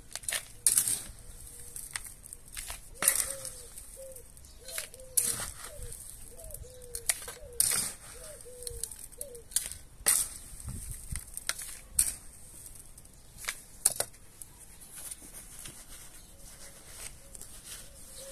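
Gritty perlite-rich potting mix being scooped with a small trowel and poured into a plastic flowerpot: about a dozen sharp, irregular scrapes and rattling pours, with gloved hands working the mix in the pot near the end.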